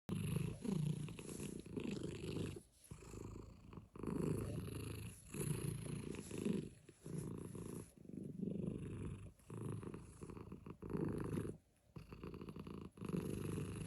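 A domestic cat purring, an engine-like rumble that swells and fades in pulses of about a second with each breath, with short gaps between them.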